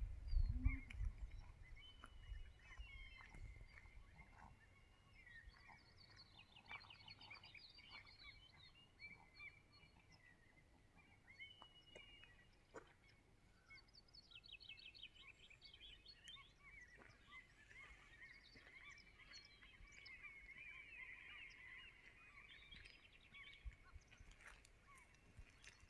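Faint wild birds calling and singing, with several quick trills. Low rumble of wind or handling on the microphone near the start.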